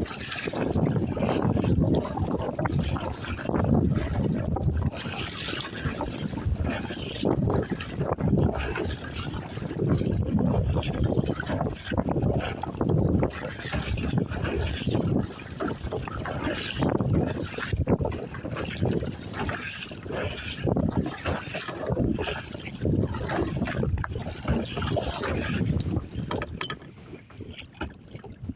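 Water splashing and slapping around a kayak paddled through choppy waves, with wind buffeting the microphone; the loudness surges and falls irregularly, easing near the end.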